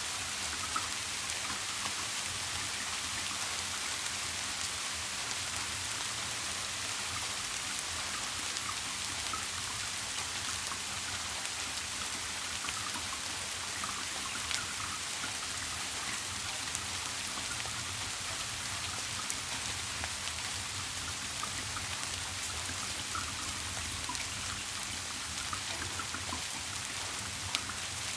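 Steady rain falling, a continuous patter with scattered single drops ticking through it.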